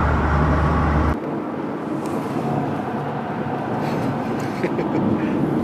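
Road noise inside a moving car: a steady rush of tyres and engine. A heavy low rumble drops away suddenly about a second in.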